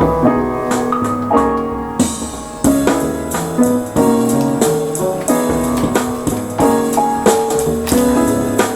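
Background music led by piano or keyboard, with a drum beat coming in about two seconds in.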